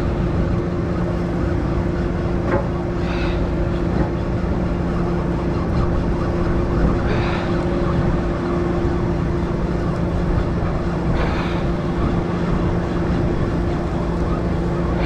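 A party boat's engine running steadily with a low hum, over a wash of water and wind, with a short hiss swelling about every four seconds.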